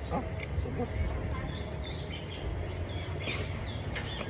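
Birds chirping faintly and on and off over a steady low outdoor rumble.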